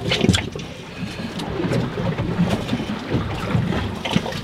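Wind buffeting the microphone with an uneven low rumble over choppy water lapping against a small boat's hull, with a few short knocks or splashes near the start and again near the end.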